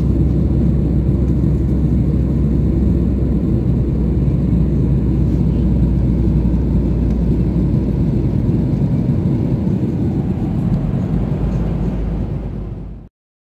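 Steady low rumble of a Boeing 737's jet engines and rushing airflow heard inside the passenger cabin at cruising altitude. It cuts off abruptly near the end.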